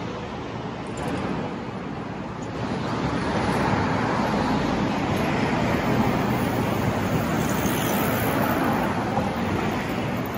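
City street traffic noise: a steady rush of passing vehicles that grows louder about three seconds in.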